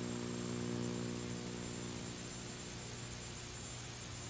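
Steady electrical mains hum with its overtones, over a hiss and a faint high whine, easing slightly in level over the few seconds.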